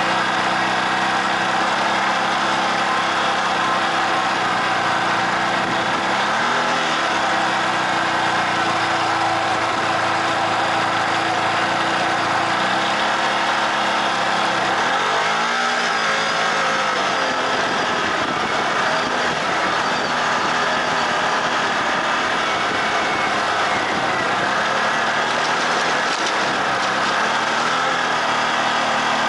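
Off-road vehicle's engine running as it drives over sand trails, with a steady hiss over it. The revs rise and fall several times, most clearly about halfway through.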